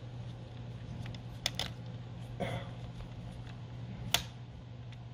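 Small screwdriver and fingers working the single screw that holds a laptop's Wi-Fi card, giving a few short sharp clicks, the loudest about four seconds in, over a steady low hum.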